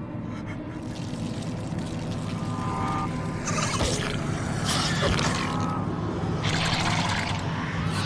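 Monster-film sound design: a steady low drone, with three short wet, splashing liquid sounds in the second half.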